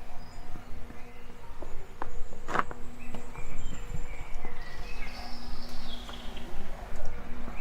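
Outdoor ambience: a steady low hum over a low rumble, with short bird chirps and a buzzing insect. A single sharp click comes about two and a half seconds in.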